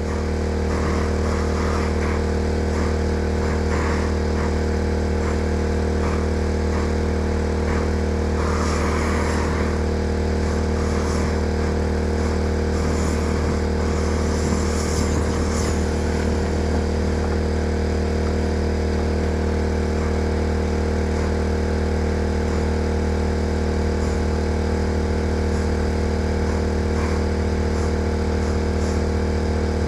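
Portable generator engine running steadily at a constant speed, an even low hum that does not change. Faint clatter rises over it for a few seconds in the middle.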